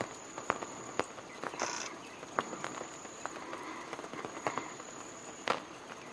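A high-speed camera shutter clicking in irregular, scattered clicks. A faint high-pitched steady tone comes and goes behind it, and a short hiss sounds about a second and a half in.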